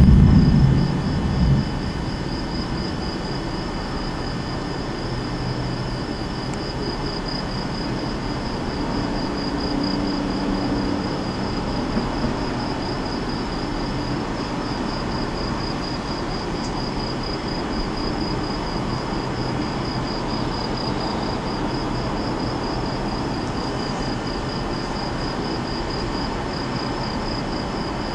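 Night insects chirping in a steady, fast-pulsing high chorus. A low rumble swells loudest in the first second or so, then fades.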